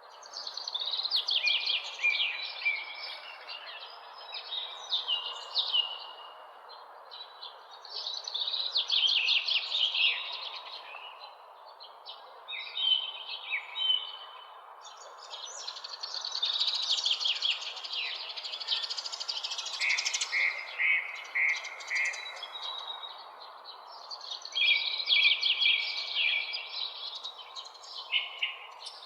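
Songbirds singing: bursts of rapid chirped trills and short phrases that come every few seconds and overlap one another, over a steady background hiss.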